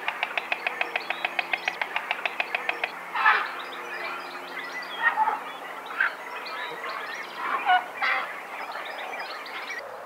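White stork bill clattering: a fast, even run of dry clicks, about eight a second, which stops about three seconds in. This is the stork's clapping display at the nest. After it, other birds give short, scattered calls.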